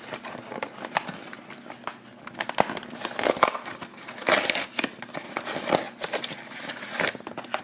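Crinkling and crackling of a torn cardboard blind-box package and its printed foil compartment wrappers being picked at and peeled back by fingers to free a small toy figure, in irregular snaps and rustles with two louder crinkly bursts in the middle.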